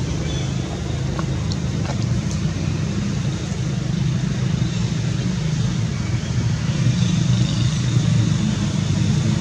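Steady low rumble of motor traffic, with a few faint high chirps over it.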